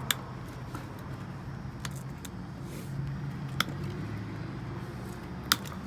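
Five short, sharp knocks over a steady low hum; the first and last knocks are the loudest.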